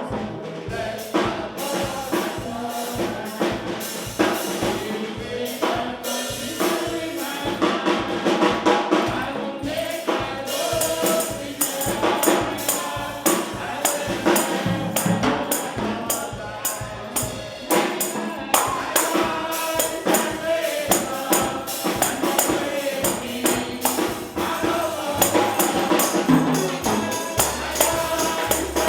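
Church praise singing: a group of voices sings a gospel chorus while a tambourine is shaken and struck in a steady rhythm.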